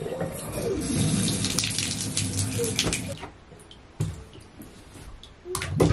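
Bathtub faucet turned on, water running into the tub for about three seconds and then stopping, followed by a few sharp knocks.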